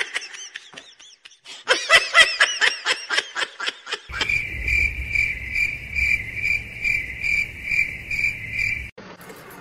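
Cricket chirping in a steady, even rhythm, about two chirps a second. It starts about four seconds in and cuts off suddenly near the end, after two runs of quick, high, arching chirps.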